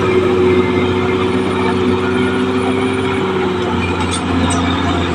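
Caterpillar D6R XL bulldozer's diesel engine running at a steady pitch, dipping slightly in level near the end.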